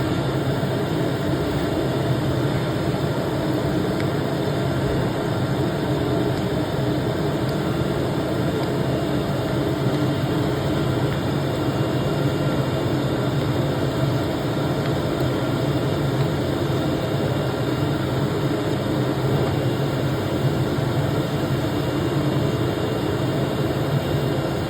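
D series 1313 CNC cutting machine running steadily while cutting paper: a constant machine hum with no breaks.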